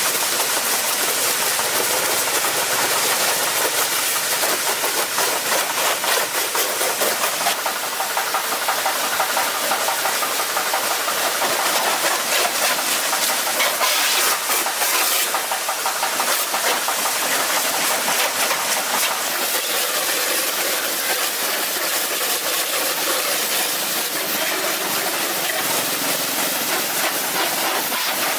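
A motor running steadily under a strong, even hiss, with a fast regular pulsing.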